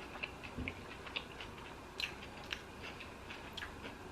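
Chewing of a lettuce-wrapped sandwich, with wet, irregular mouth clicks and smacks and a soft low thump a little over half a second in.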